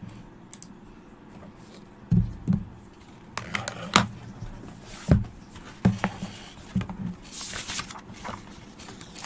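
Scattered low knocks and clicks, about half a dozen spread irregularly, from someone handling things at a desk, with a brief hiss near the end.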